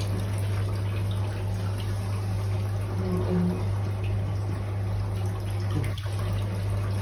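Turtle tub's water pump and overflow filter running: a steady trickle of water with a constant low pump hum.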